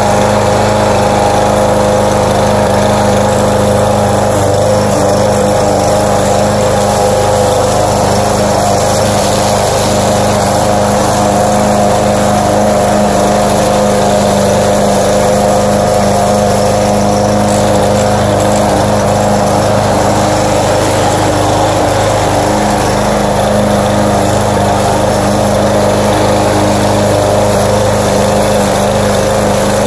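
Gasoline walk-behind rotary lawn mower running steadily at a constant engine speed while cutting grass, loud and close as heard at the handle.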